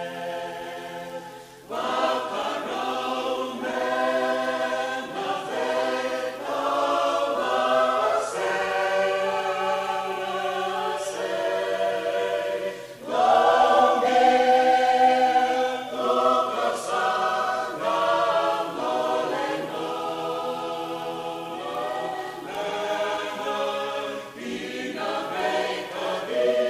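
A choir singing in harmony, unaccompanied, in slow held phrases. The singing breaks off briefly about a second and a half in and again about thirteen seconds in before the next phrase.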